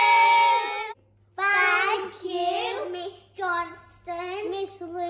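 A group of young children holding a loud cheer that stops about a second in. Then a few children sing together, with held, gliding notes.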